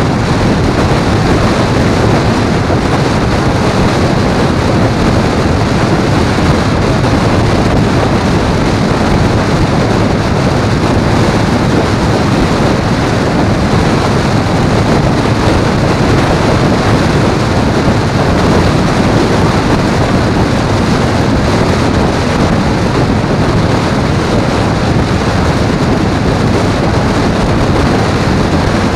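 Steady, loud wind rushing over the microphone of a motorcycle riding at highway speed, blended with engine and road drone.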